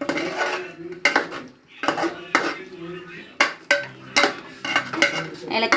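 A spoon stirring chicken curry in a cooking pot, knocking and scraping against the pot's sides in a dozen or so irregular clacks.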